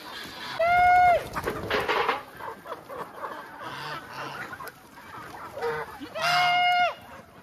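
A large flock of free-range chickens clucking and scuffling around scattered feed, with two loud, short, held calls from the flock, one about a second in and one near the end.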